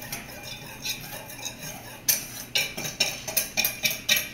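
Metal kitchen utensils clinking and scraping against metal cookware: an irregular run of short clinks that comes thicker in the second half.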